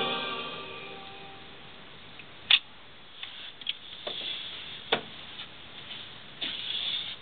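Music from the 1959 Magnavox console phonograph fades away in the first second or so. It is followed by three sharp clicks, about two and a half seconds apart, with lighter mechanical ticking and rattling between them.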